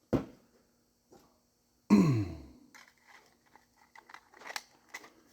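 A sharp knock at the start, then a man's cough about two seconds in, followed by faint light clicks of piston rings and parts being handled.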